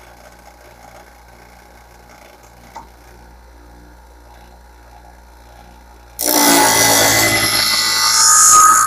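Scissor sharpener's motor humming quietly. About six seconds in, a pinking shear blade in the holder is drawn across the spinning abrasive wheel, giving a loud grinding of steel on the wheel for nearly three seconds that stops abruptly.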